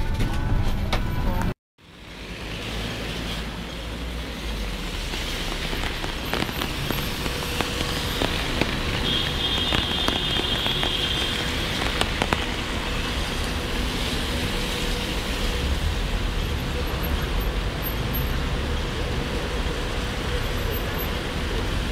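Steady hiss of rain and tyres on a wet city road as cars pass through a rain-soaked intersection. It opens with a moment of the minibus interior that cuts off abruptly.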